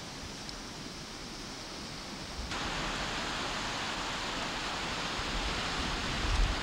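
Steady rushing noise of wind and water at a shore on a camcorder microphone. It jumps abruptly louder about two and a half seconds in, and low wind buffeting thumps against the microphone near the end.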